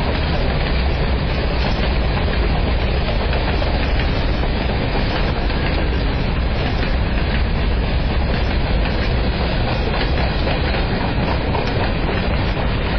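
Freight train's boxcars and covered hopper rolling past, their steel wheels running steadily on the rails with scattered light clicks.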